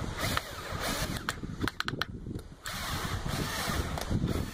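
Cordless drill driving a small screw through a piece of PVC pipe into a wood strip. It runs in two short bursts, with a few sharp clicks between them.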